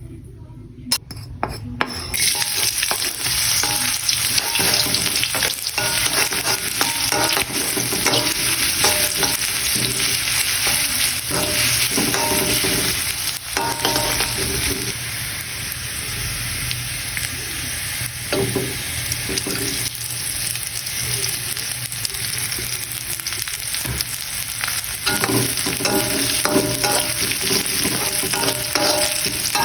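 Food sizzling in a hot frying pan while a utensil stirs and scrapes it, during home cooking of instant noodles. A couple of sharp clicks come about a second in, and the sizzle starts about two seconds in and keeps going.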